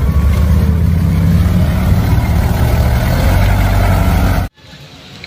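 A motor vehicle's engine running steadily with a deep, loud hum, which cuts off suddenly about four and a half seconds in, like an added engine sound effect.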